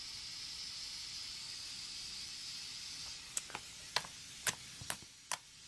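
A faint steady hiss for about three seconds, then five short, sharp clicks roughly half a second apart, as homemade slime is handled, poked and squeezed.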